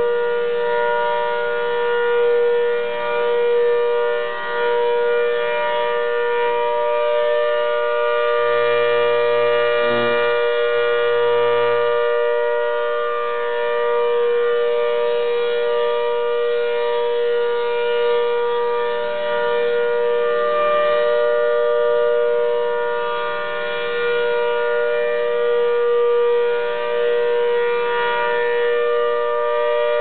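ACA Hurricane rotating outdoor warning siren sounding a steady, loud tone as its single horn turns, the sound swelling and fading each time the horn sweeps past.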